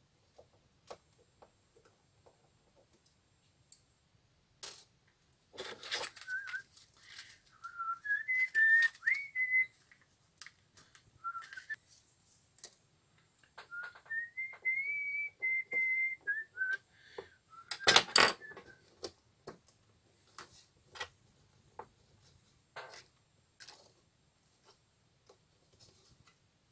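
A man whistling a wandering tune in two phrases, over light clicks and taps of a screwdriver and small computer parts being handled. About 18 seconds in comes one sharp knock, the loudest sound.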